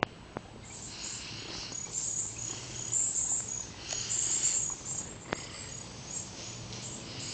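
High-pitched insect chirping, coming in uneven swells that are loudest in the middle.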